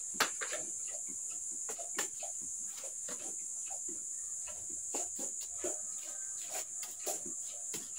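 A steady high-pitched insect drone, with scattered scrapes and clinks of a trowel working cement mortar out of a pail. Short farm-animal calls come now and then.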